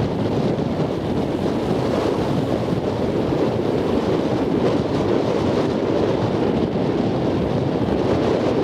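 Wind blowing across the microphone over the wash of ocean surf, a steady rushing noise without let-up.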